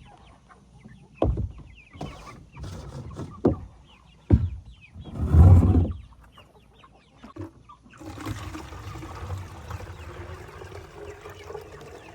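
Chickens clucking around the feet, broken by several dull thumps, the loudest about five seconds in.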